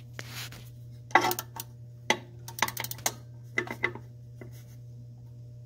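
Metal hand tools clinking and tapping against the turbo and its bolts in a diesel engine bay: scattered short sharp clicks, with a quick run of several clinks about halfway through.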